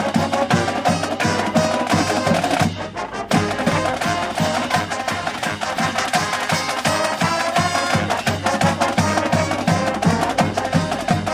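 Marching band playing, drums keeping a steady, fast beat under the horns, with a short break about three seconds in.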